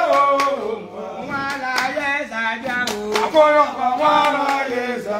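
Several people singing together, with a few scattered hand claps.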